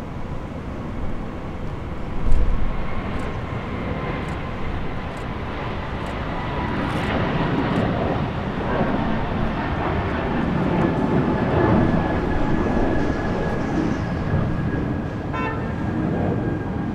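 Airbus A220-300's Pratt & Whitney PW1500G geared turbofan engines at takeoff thrust as the jet rolls, lifts off and climbs away: a steady jet noise with a high whine that slowly falls in pitch, growing louder through the middle. A low thump about two seconds in.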